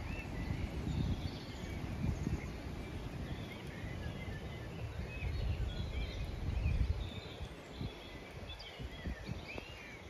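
Strong storm wind gusting and buffeting the microphone, easing about three-quarters of the way through. Birds call in many short chirps and whistles over it throughout.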